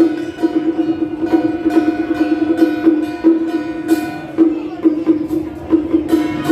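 Music: a plucked string instrument over a repeated note pulsing in an even beat, with light percussion strikes.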